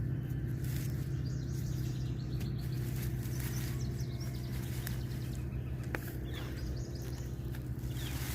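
Outdoor ambience: a steady low hum with faint bird chirps, and a single short click about six seconds in.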